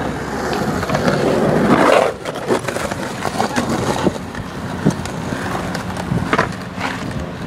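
Skateboard wheels rolling on concrete with several sharp clacks of the board, over traffic passing on a busy road; the traffic noise swells over the first two seconds.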